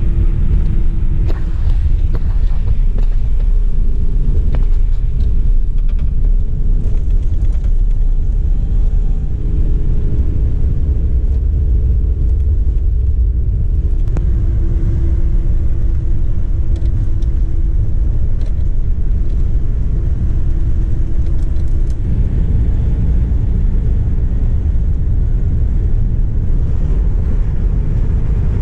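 An RV driving at road speed, heard from inside the cab: a steady low rumble of engine and road noise, with a faint hum that comes and goes.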